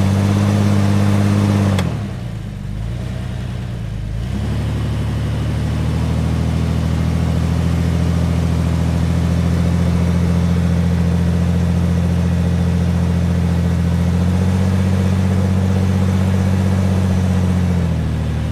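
Jeep Cherokee XJ engine held at high revs under load while pulling a stuck vehicle, its tyres digging into sand. The revs drop back about two seconds in, climb again about four seconds in, step up slightly near fourteen seconds and ease off near the end.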